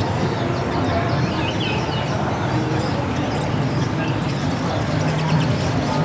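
Caged songbirds chirping in short calls, most of them in the first two seconds, over a steady hum of background voices.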